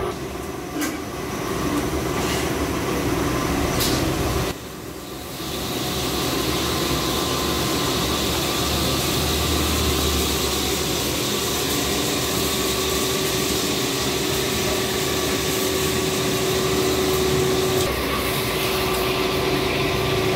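An electric motor running with a steady whir and hum, dropping away briefly about four and a half seconds in.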